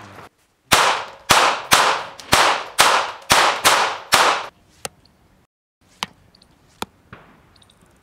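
A quick series of about nine gunshots, roughly two a second, each with a ringing tail, followed by a few single short, sharp cracks spaced about a second apart.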